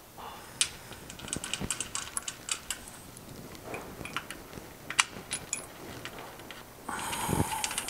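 Small metallic clicks and clinks of steel bolts and nuts being slotted through a trailer jack's mounting plate on the coupler and threaded on by hand. Near the end there is a louder scraping sound lasting about a second.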